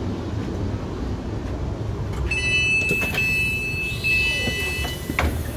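Inside a passenger train carriage: a steady low rumble, and about two seconds in a high electronic warning tone sounding as three long beeps, typical of a door-closing alarm at a station stop.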